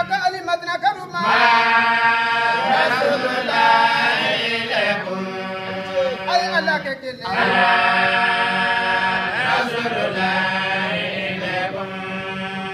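Islamic devotional chanting by men's voices at a Mawlid gathering. A lead male voice sings two long, melodic phrases with held notes, over a steady low note sung by the group.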